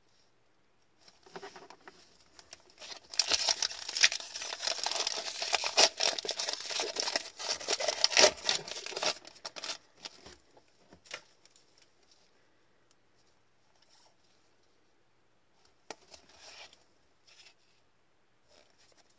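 Hockey card pack wrapper being torn open and crinkled: a dense crackling from about three seconds in until nearly ten, followed by a few quieter rustles and ticks as the cards are handled.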